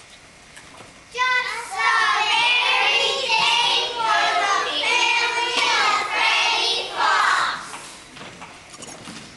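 A group of children singing a short phrase together, starting about a second in and dying away a little over a second before the end.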